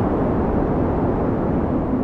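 Storm wind blowing in a steady, dense roar, with a low rumble of gusts hitting the microphone.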